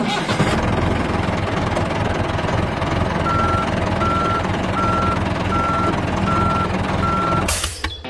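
Truck engine sound effect running steadily, with a reversing alarm beeping six times, evenly spaced, from about three seconds in. Near the end a short hiss sounds and the engine stops.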